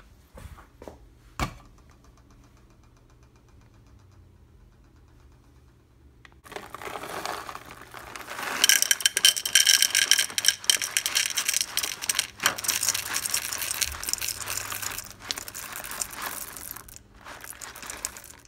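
Whole coffee beans poured from a bag into a clear plastic cup, rattling and clattering densely with the bag crinkling. It starts about six seconds in and goes on almost to the end, after a few light handling clicks.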